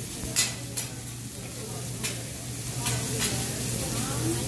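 Food sizzling on a hot teppanyaki griddle, with a few sharp metal clicks over a steady low hum.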